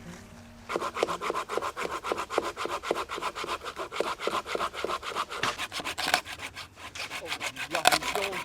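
A hand saw cutting through wood in quick rasping strokes, starting about a second in.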